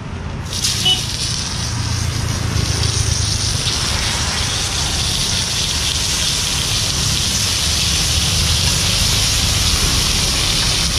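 Marinated whole fish sizzling on a large hot iron griddle over a wood fire. The hiss starts about half a second in as the fish goes down, builds over the next few seconds, then holds steady.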